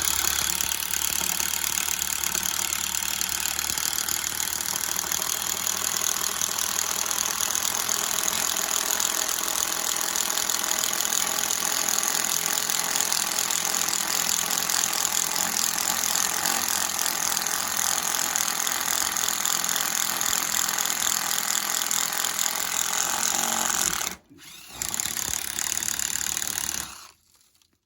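A Hart cordless drill boring a hole through a piece of wood: the motor runs steadily under load with a fast rattle for about 24 seconds. It stops briefly, then runs again for about two more seconds before cutting off.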